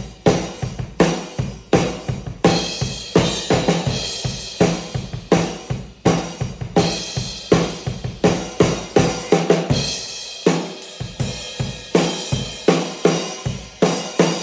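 Drum kit played in a steady groove: Mapex drums with a Pearl Session Studio Select snare, Paiste 2002 hi-hats and a Zildjian Z Custom crash, bass drum, snare and hi-hat hits packed close together.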